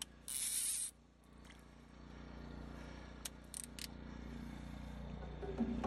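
Catfish splashing briefly at the surface in a landing net, a short rushing burst about half a second in, followed later by a few light clicks, over a low steady hum.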